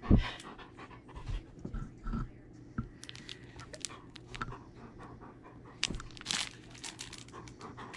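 Clear plastic packaging crinkling and crackling in irregular bursts as makeup brushes are worked out of their sleeve, with a dog panting close by. There is a knock right at the start and a few softer bumps later.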